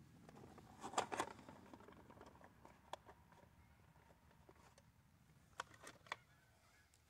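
A few faint clicks and knocks from handling a Stevens 301 single-shot 12-gauge shotgun. A close pair about a second in is loudest, with single clicks near the middle and a pair near the end.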